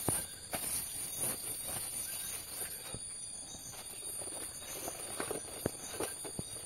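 Banana leaves rustling and crinkling in short, scattered strokes as they are wiped and smoothed flat by hand, over a steady high-pitched chorus of night insects.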